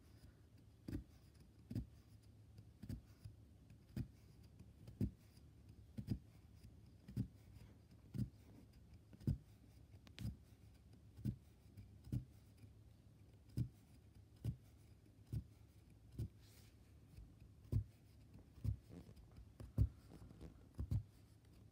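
Oxford punch needle punching wool yarn through monk's cloth, a soft thud at each stitch, about one a second.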